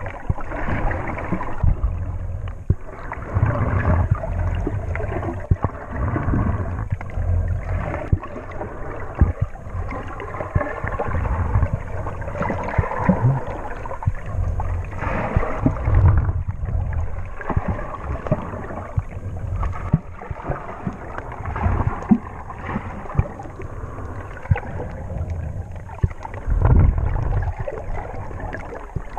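Muffled sloshing and gurgling of sea water around a camera held just below the surface, rising and falling in uneven surges, with scattered small knocks.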